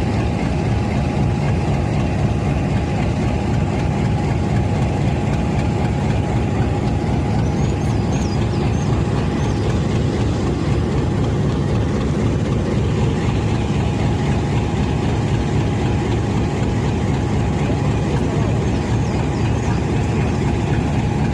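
GE U20C diesel-electric locomotive's V12 diesel engine idling steadily: a dense low rumble with a steady whine above it.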